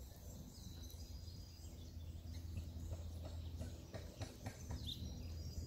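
Low wind rumble on the microphone, with faint small-bird chirps; one short chirp stands out about five seconds in.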